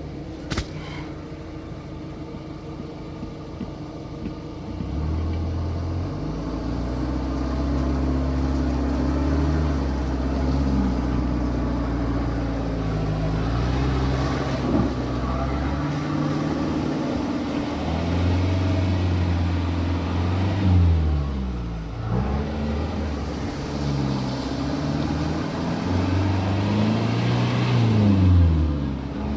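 Four-wheel-drive vehicle's engine working through rough off-road ground, its revs rising and falling again and again as the throttle is worked, growing louder about five seconds in.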